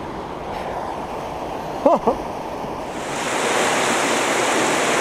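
Steady rushing water from river rapids. About three seconds in, the rushing noise grows louder and hissier. A short voiced sound is heard about two seconds in.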